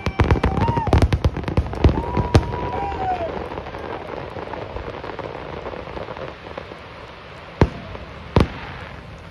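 Aerial fireworks: a rapid volley of sharp shell bursts over the first two and a half seconds, with a few high whistling tones among them. A fading crackle follows, then two more single bangs near the end.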